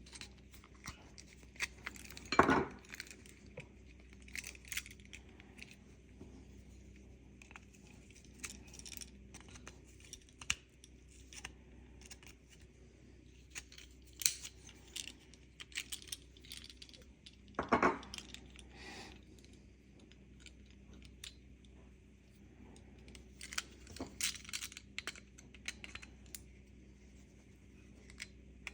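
Small plastic and metal parts of a car key fob being handled: scattered clicks, taps and rustles, with two louder knocks, one a few seconds in and one past the halfway point.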